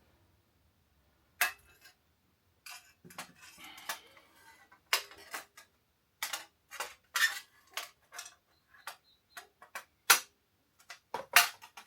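Metal motorcycle exhaust parts clinking and knocking together as they are picked up and tried in place. It is an irregular run of sharp clanks that starts about a second and a half in, with one of the loudest near the end.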